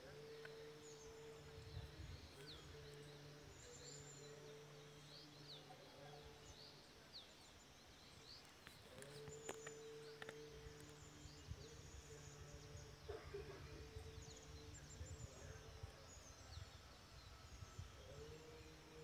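Many small birds chirping and twittering faintly throughout, over a faint low monotone chant in long held phrases with short breaks: Buddhist chanting from the village.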